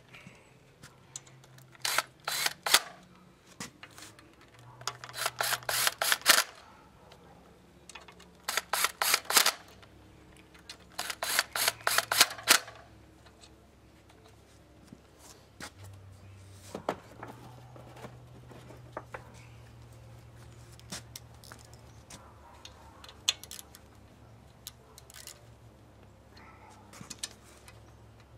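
Hand ratchet clicking in short runs as the water pump housing bolts on an outboard lower unit are run down. There are four bursts of rapid clicks in the first half, then only scattered light clicks and taps.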